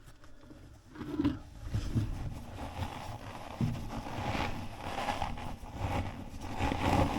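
Irregular rustling and scraping as high-temperature ceramic fibre insulation is stuffed into the gap between the old chimney flue and the new liner. It starts about a second in and continues unevenly.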